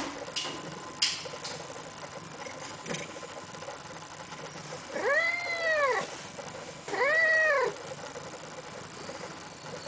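Chocolate point Siamese cat meowing twice, about a second apart, each call rising and then falling in pitch; the first lasts about a second, the second a little shorter. A couple of short knocks come before the calls.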